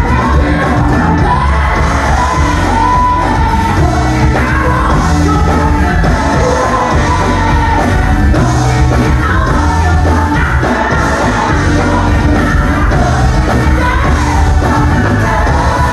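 Live band with a lead singer performing a Christmas song, loud and full with a steady bass line.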